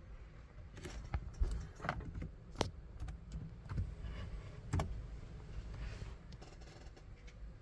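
Handling noise: a few irregular clicks and light knocks over low rustling, with no beeping tones.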